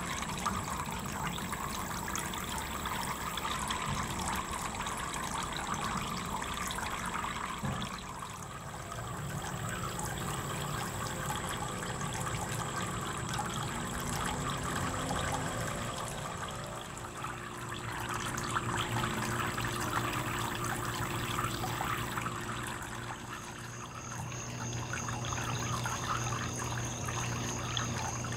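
Small garden fountain running: thin streams of water falling from the rim of a plastic platter into a shallow basin below, a steady trickling and splashing. A low hum joins about two-thirds of the way in.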